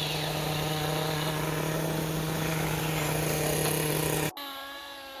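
Radio-controlled car motor running at a steady pitch; it cuts off abruptly about four seconds in, and a quieter motor sound with a pitch that rises and falls follows.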